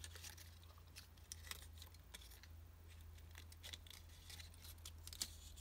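Faint rustling and light ticking of white card stock being pressed and worked between the fingers as a glued, notched strip is bent around a paper circle, over a low steady hum.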